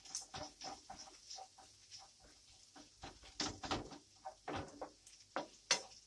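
Wooden spoon stirring minced meat, peppers and tomato paste in a non-stick frying pan: irregular soft scrapes and taps of the spoon against the pan.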